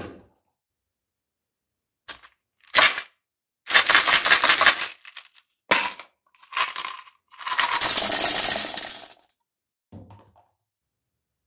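Mentos gum pellets shaken out of a plastic jar, clattering onto a ceramic toilet bowl and the balls in it. The rattling comes in about seven separate bursts with short silences between, the longest near the middle.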